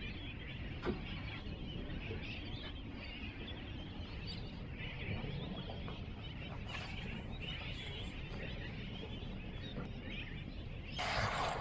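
A continual chorus of seabirds calling around the boat. Near the end a water hose starts spraying with a broad hiss.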